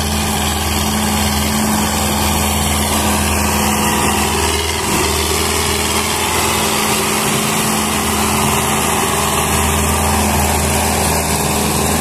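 Massey Ferguson 260 tractor's diesel engine running steadily under load as it hauls a heavily loaded sugarcane trolley.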